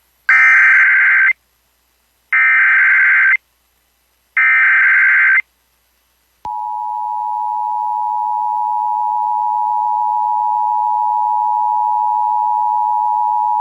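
Emergency Alert System Required Monthly Test, broadcast over FM radio: three bursts of the SAME digital data header, each about a second long with about a second's gap between them. About six and a half seconds in, the steady two-tone EAS attention signal begins and holds.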